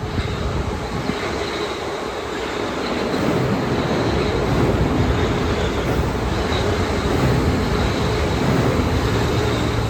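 Metro-North commuter train rolling past, a steady rumble of wheels on rails that grows louder about three seconds in and then holds, with a faint high wheel squeal.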